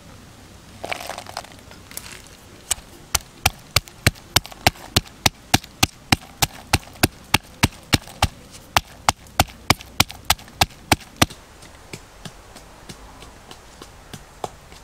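Wooden pestle pounding red chillies and garlic in a wooden mortar: sharp knocks about three a second, after a brief rustle near the start, stopping a few seconds before the end.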